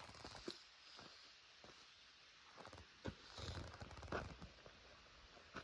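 Near silence with a few faint clicks and a brief rustle about three and a half seconds in.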